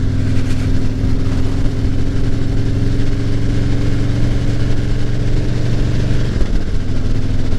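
Motorcycle engine running steadily under way; its note drops about six seconds in.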